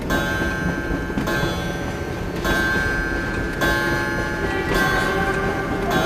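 Layered clock soundscape: a bell-like ringing tone is struck about once every second over a dense low rumble.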